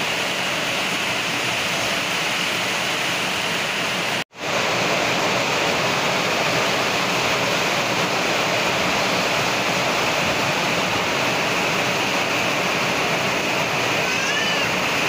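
Heavy rain falling steadily, a dense even hiss. The sound cuts out for an instant about four seconds in.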